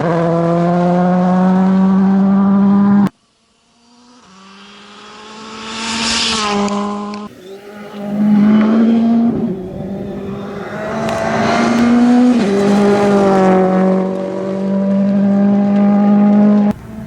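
WRC2 rally car engines at speed: one car's engine holds a steady high note, then cuts off suddenly about three seconds in. Another car's engine comes in and swells as it approaches, revving up and dropping back through gear changes, loud as it passes close.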